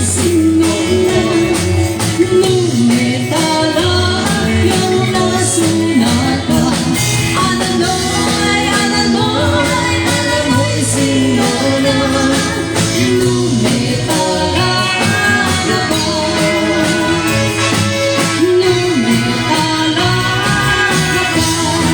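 Live band playing a waltz, with singing over guitars and bass.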